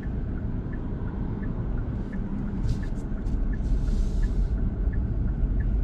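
Car turn signal ticking about once every 0.7 seconds over the steady low rumble of the engine and road noise in the cabin, with a brief hiss about four seconds in.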